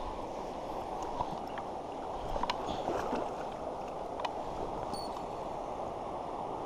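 Steady rush of river current swirling around wading legs, muffled, with a few light clicks and ticks.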